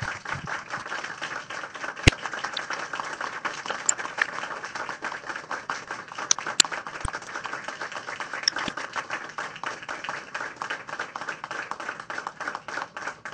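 Audience applauding: many people clapping steadily in a sustained round of applause.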